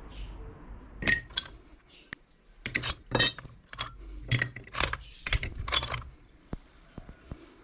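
Metal clinking and striking against metal: an irregular run of about ten sharp, ringing knocks over some five seconds, then a few faint ticks near the end.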